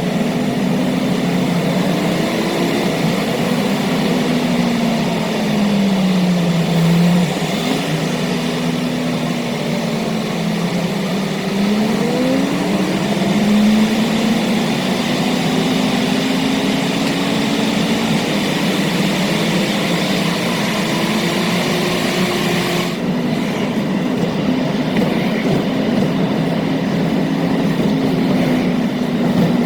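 Car driving at speed: the engine note rises and falls as it speeds up and changes gear, over steady road and wind noise. About two-thirds of the way through, the higher hiss suddenly drops away.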